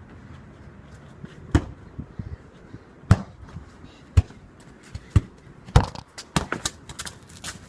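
A football bouncing: a string of sharp thuds, the first about one and a half seconds in, then roughly one a second, coming quicker and closer together near the end.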